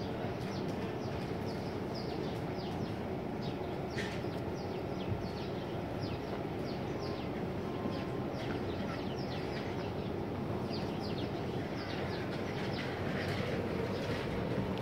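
Small birds chirping, short quick calls repeated many times, over a steady low background rumble.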